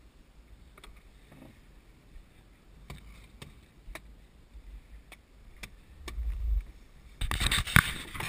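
Scattered faint knocks and clicks on a small boat, then, about seven seconds in, loud rubbing and scraping as a hand handles the GoPro camera housing close to the microphone.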